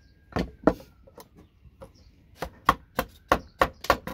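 Repeated sharp knocks of a tool striking a network patch panel to knock its jack connectors off. There are a couple of blows, then a quicker run of about six, roughly three a second, near the end.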